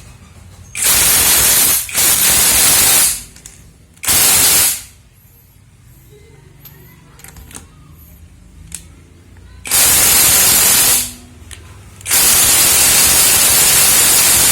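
Ingco CIWLI2001 cordless impact wrench hammering on car wheel lug nuts to loosen them, in five loud bursts: two runs of about a second each, a short one, then after a pause a longer run and a final long run that is still going at the end.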